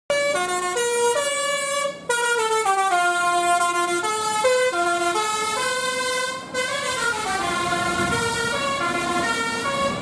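Basuri telolet musical air horn on a tour bus, playing a fast rising-and-falling tune of short stepped notes. It breaks off briefly about two seconds in and again after six seconds.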